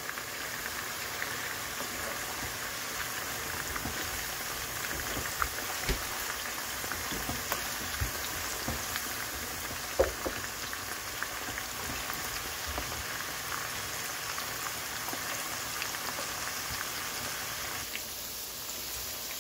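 Coated chicken pieces deep-frying in hot oil in a pan: a steady bubbling sizzle with scattered crackles and pops, the sharpest pop about ten seconds in.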